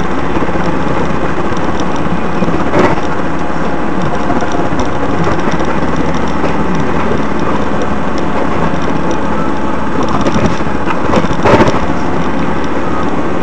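Loud, steady rumbling road noise from a moving vehicle, as picked up by a dashcam, with two sharp knocks, about 3 seconds in and near the end.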